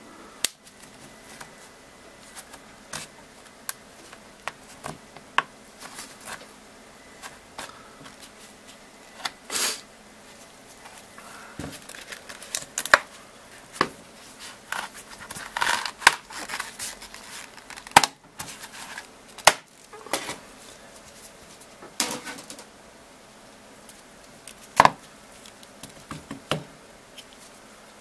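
Amazon Fire HD 10 tablet's plastic housing being pried apart: scattered sharp clicks and snaps as its plastic tabs release, with a few short scraping sounds.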